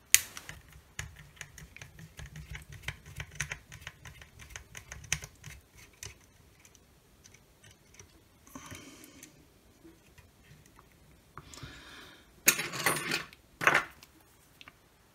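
Small rapid clicks and ticks of a screwdriver working small screws out of a circuit board in a plastic meter housing. Near the end come a few louder knocks and clatters as tools are handled and set down on the bench mat.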